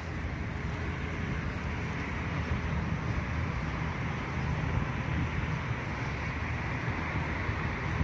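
Steady rumble of road traffic from a nearby highway.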